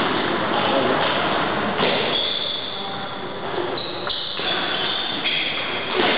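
Table tennis ball clicking a few times against the table and bat between points, over a steady background hiss.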